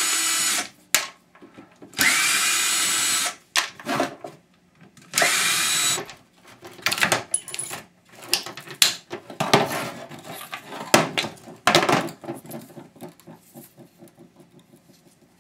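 A power drill/driver backs screws out of a pressure-washer spray gun in short runs, each starting with a rising whine. Irregular clicks and rattles of plastic parts being pulled apart follow.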